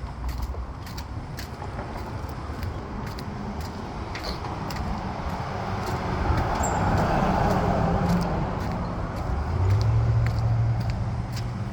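Road traffic on a street: a vehicle passes, swelling and fading about six to eight seconds in, then a low engine hum from another vehicle near the end.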